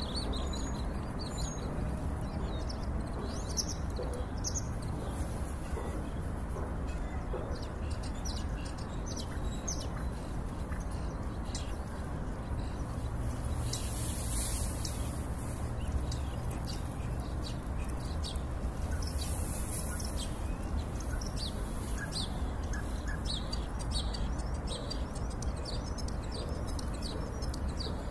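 A starling singing a long, continuous run of rapid chirps, clicks and short whistles, over a steady low background rumble.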